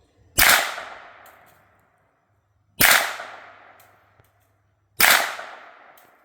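Three suppressed 9mm shots from a CZ Scorpion Evo 3 S1 carbine with a Dead Air Mojave 9 suppressor, about two and a half seconds apart. Each is a sharp crack with an echo dying away over a second or so. They are supersonic rounds through a wet suppressor, and they are still seriously loud.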